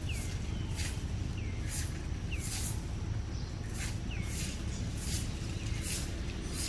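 A bird calling over and over with short falling chirps, about one a second, along with regular short hissing pulses and a low steady rumble.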